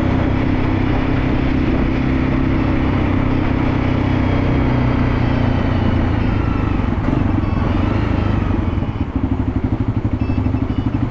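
Motorcycle engine running steadily while riding, then about eight seconds in it drops to a pulsing idle that runs to the end.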